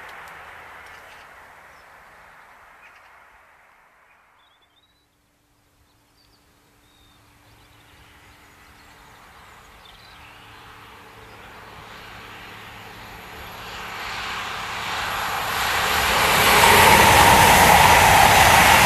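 Diesel passenger train running on a main line, its sound fading away, then after a brief near-silent gap another diesel passenger train approaching and passing at speed. Its engine and wheel-on-rail noise swells steadily and is loudest near the end.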